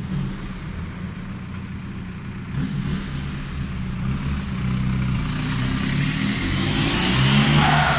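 VW Golf Mk4's 1.9 TDI ASZ four-cylinder turbodiesel running through a straight-piped exhaust, with a steady low engine note. About halfway through a hissing noise builds, loudest near the end, where it sweeps downward in pitch.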